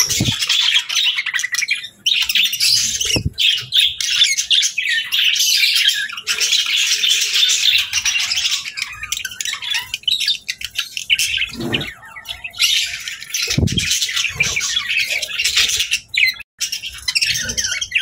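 Budgerigars chattering and chirping in a fast, dense warble, with short pauses about two seconds in and near the end. A few soft low thumps come through under the chatter.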